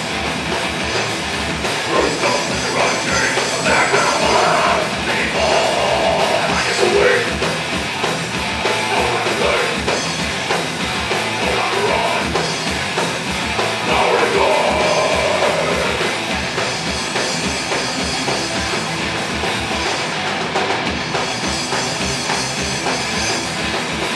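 Live heavy metal band playing: distorted electric guitars and a drum kit, with vocals coming in near the start and again around the middle.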